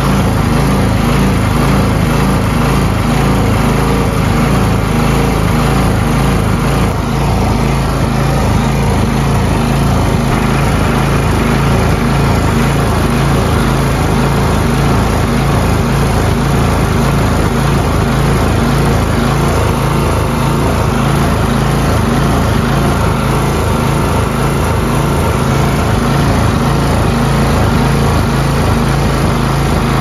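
Single-stage gas snowblower's small engine running steadily, its rubber-paddle auger engaged and spinning.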